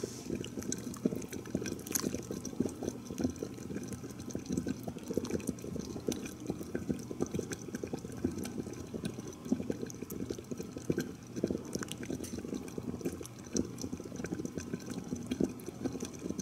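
A pot of milky chicken fricassee broth with carrots boiling hard, a steady crackle of bubbling and popping while it is stirred with a silicone spoon. The heat is too high: the pot is boiling vigorously.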